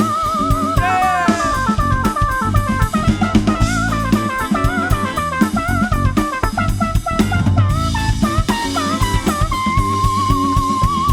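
Funk band playing: a busy drum kit with a bass line under a lead instrument's fast run of bending notes, which settles on one long held note near the end.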